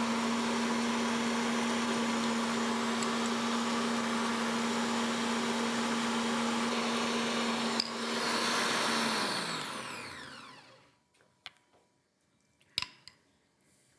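Electric mixer whipping a meringue mixture at a steady speed, then switched off about nine seconds in, its motor winding down with a falling pitch. A few light clicks follow.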